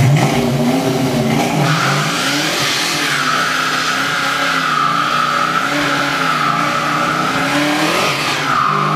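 A car doing a burnout: the engine revs up, and about a second and a half in the rear tyres break loose into a loud, wavering squeal over the engine running at high revs. Near the end the squeal dips briefly as the revs fall and climb again.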